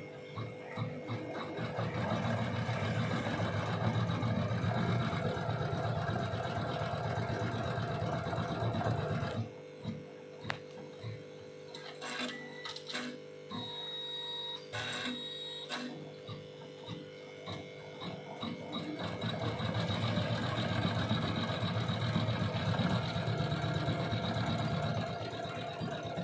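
Computerised embroidery machine stitching at speed, a dense steady rattle of the needle. About a third of the way in it drops to a quieter stretch with separate clicks and a few short tones, then picks up stitching again and eases off near the end.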